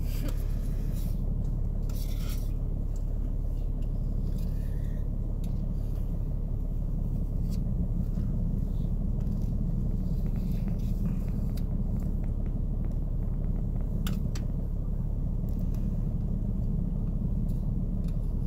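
Steady low engine rumble of an idling car, even throughout, with a few faint ticks.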